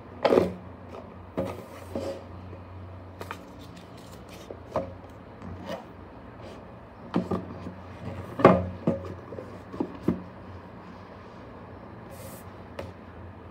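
Cardboard card-game box and its deck being handled: irregular taps, knocks and rubbing as the cards are set into the box insert and the box is closed and lifted, with the sharpest knocks about a third of a second in and around eight and a half seconds in.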